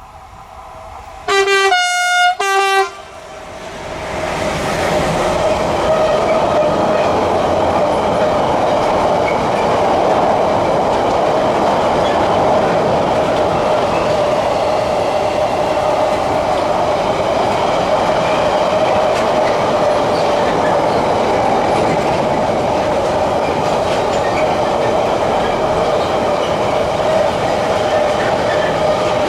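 Train sounding two short two-tone horn blasts about a second in, then rolling past close by, loud and steady, with wheels clattering on the rails.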